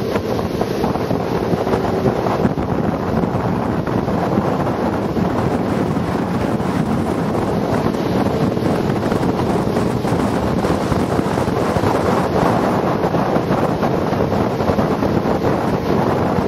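Wind buffeting the microphone on a speeding open motorboat, over the steady drone of the boat's engine and the rush of water.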